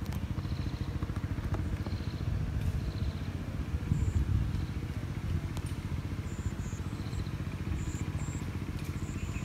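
A motor running steadily with a low, evenly pulsing rumble, a little louder about four seconds in, with faint short high peeps over it.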